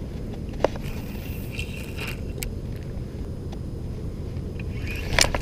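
Spinning rod and reel being cast and handled: a few sharp clicks and light handling scrapes, the loudest click cluster near the end, over a steady low rumble.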